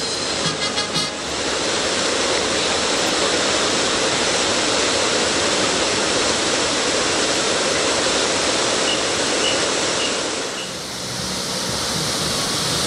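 Steady, loud rush of falling water from a park water feature. About ten seconds in it dips briefly and comes back with a brighter hiss.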